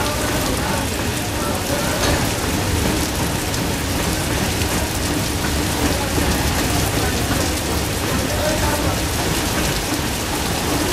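Steady rush of heavy monsoon rain and waterfall spray, with empty BOXN freight wagons rolling past on the track underneath.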